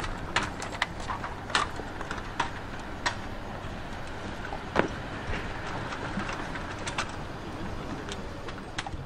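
Scattered sharp clicks and knocks of tripods, aluminium stepladders and camera gear being handled and packed up, the loudest about five seconds in, over a steady background hum.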